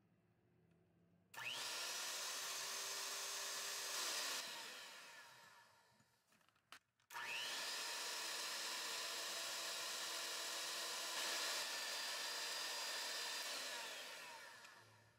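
Electric hand mixer whipping egg whites and sugar into meringue. The motor's whine rises as it starts, runs steadily, then winds down; after a brief click it starts again about seven seconds in and runs longer before winding down near the end.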